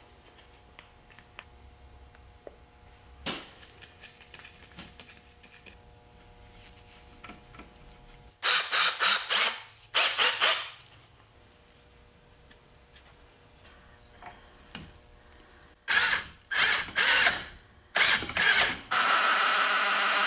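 Cordless drill running in short trigger bursts, a couple around the middle and several more near the end, settling into a steady run at the very end, as a wooden dowel held in its chuck is spun into an epoxy-filled hole in a chair rail.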